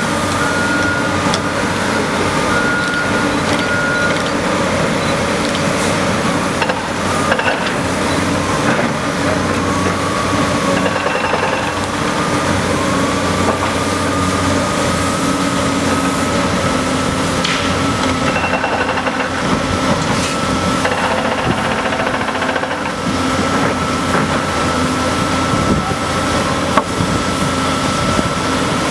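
Large hydraulic excavators, a Cat 385BL and a Komatsu, running and digging: a steady diesel engine drone with a high hydraulic whine that shifts up in pitch near the middle, and occasional sharp knocks.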